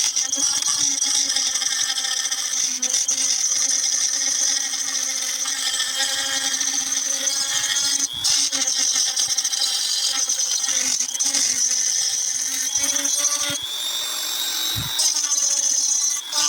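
High-speed handheld rotary tool grinding an airsoft pistol grip, its motor whining steadily at a high pitch. The tone briefly dips near 8 s and again around 14 s as the bit is pressed into the work.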